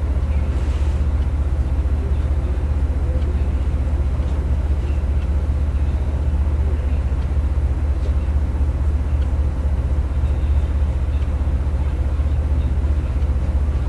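Steady low mechanical drone with a faint steady tone above it, unchanging throughout.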